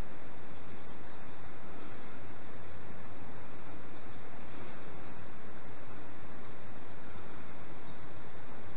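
Steady outdoor hiss of a grassy meadow, with a few brief high chirps scattered through it.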